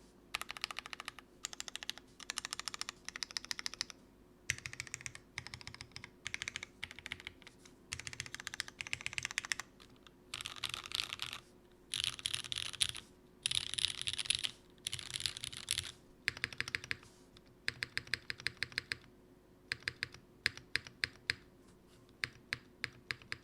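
Typing on a CW60 60% mechanical keyboard with lubed, filmed Hyperglide MX Black linear switches in a polycarbonate plate, with GMK keycaps. It comes as bursts of rapid keystrokes with short pauses between them.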